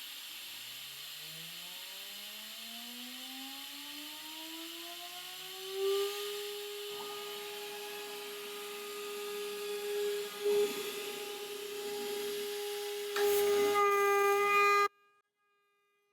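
Jianken JGL-80 CNC router spindle spinning up, its whine rising in pitch over about six seconds and then holding steady at 24,000 rpm. A single-flute end mill then cuts 7075 aluminium, adding a rougher, louder cutting noise that grows heavier near the end before the sound drops away abruptly.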